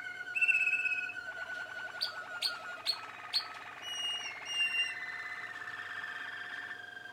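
Young Malinois Waterslager canaries singing: long rolling trills and whistled notes, with a run of sharp clicking notes in the middle. A steady faint tone runs underneath.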